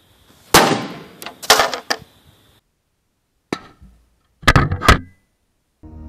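Baseballs thrown at about 75–80 mph slamming into a microwave oven's sheet-metal casing and door. A series of sharp bangs comes in two clusters, the first hit about half a second in being among the loudest.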